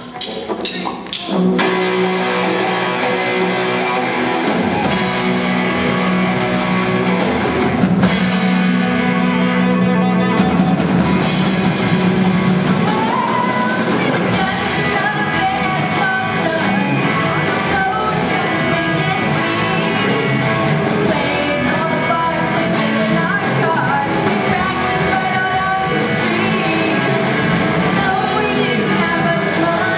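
Rock band playing live: electric guitar, drum kit and singing. A few separate hits open it, then the full band comes in about a second and a half in and plays on steadily.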